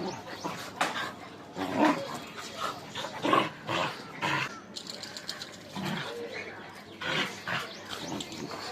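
Pet dog barking in short, irregular bursts.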